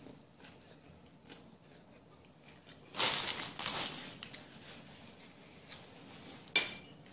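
Eating noises: a few faint small clicks, then a crunchy, rustling stretch lasting about a second, about three seconds in. Near the end comes a single sharp click with a brief ring.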